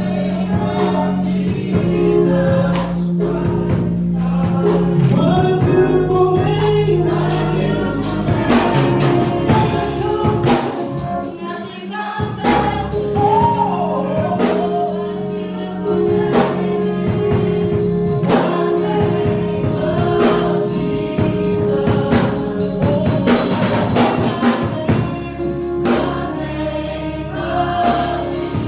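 Gospel music with choir singing over a steady beat, held organ-like chords underneath.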